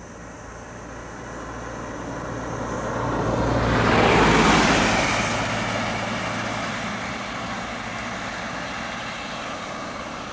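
A motor vehicle drives past close by, its engine and tyre noise rising to a peak about four seconds in and then fading, over a steady low engine hum.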